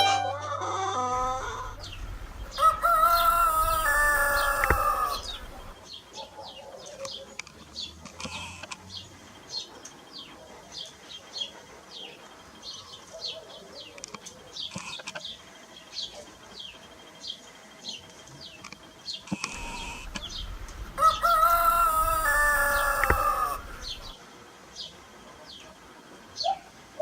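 A rooster crowing twice, once about three seconds in and again about twenty seconds later, each crow lasting a couple of seconds. Small birds chirp in quick, repeated high notes throughout.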